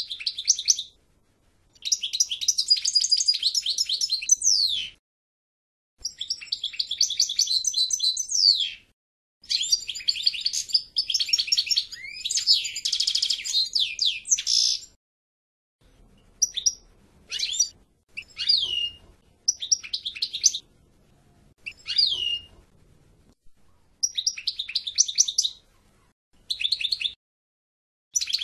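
European goldfinch singing: several long song phrases of a few seconds each, then shorter bursts of song with brief pauses between them.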